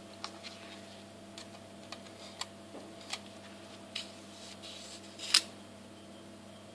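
Scattered light clicks and ticks from a steel ruler and a cutting blade being handled while a black carbon sheet is cut on a foam board, with one louder sharp click a little after five seconds in. A steady low hum runs underneath.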